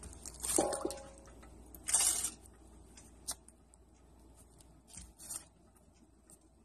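Hands working a raw turkey in an enamel roasting pan: soft, wet squishing and rustling of the skin, with a few light knocks.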